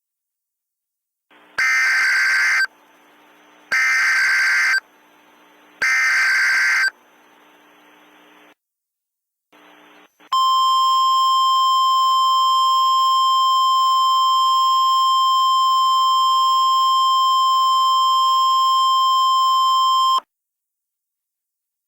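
Emergency Alert System header: three loud data bursts of about a second each, followed after a short pause by a steady, piercing attention tone that lasts about ten seconds and cuts off abruptly. Together they signal the start of a new alert. A faint hiss runs between the bursts.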